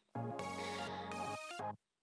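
Background music with steady pitched notes, breaking off briefly near the end.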